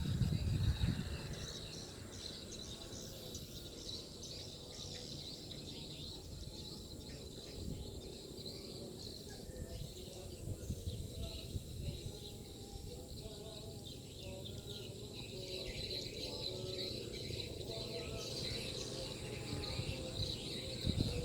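Swiftlets twittering in many short, high chirps over a steady high trill and a low background rumble.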